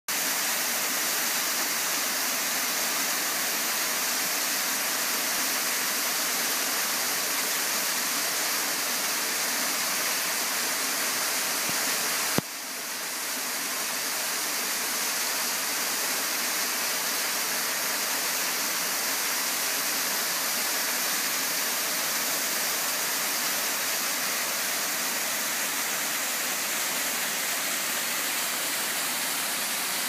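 Waterfall pouring down a narrow rock cleft into a rocky pool: a steady rushing hiss. About twelve seconds in comes a single sharp click, and the sound dips and swells back over a second or two.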